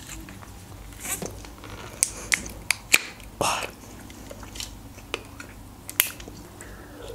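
Plastic iced-tea bottle being handled and its screw cap twisted: a few sharp clicks and crackles of plastic, bunched a couple of seconds in, with one more near the end.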